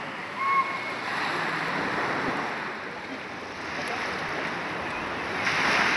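Small sea waves washing onto a pebble beach, a steady surf that swells louder near the end.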